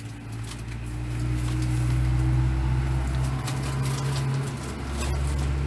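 Low steady rumble of an engine, with a humming tone that fades out about halfway through.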